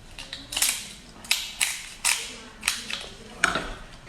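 Seafood shells being cracked and crunched while eating: about seven sharp cracks at uneven intervals.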